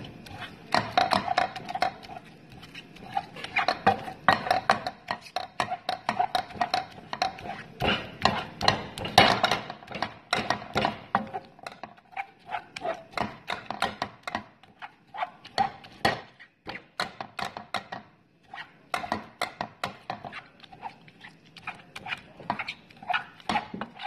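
Wooden spatula chopping and pressing cooked chicken pieces in a pan, a dense run of quick, irregular taps and scrapes against the pan as the meat is broken into shreds.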